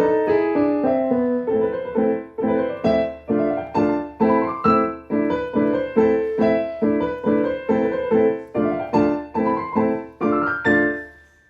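Solo piano playing repeated chords about two a second, the top notes climbing twice in a rising line. The last chord dies away just before the end.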